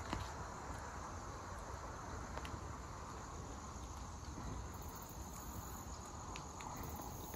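Insects trilling steadily at a high pitch, over a low rumble and a few faint ticks.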